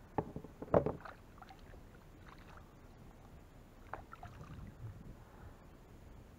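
Knocks and small splashes on and beside a plastic sit-on-top kayak as gear is handled at the water's edge, loudest just under a second in, with a few softer clicks after.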